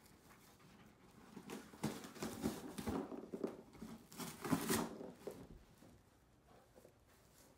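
A Labrador and a husky tearing and chewing at a fringed paper piñata: crinkling, ripping paper in a busy run of rustles that starts about a second and a half in, is loudest a little past the middle, and dies down about five seconds in.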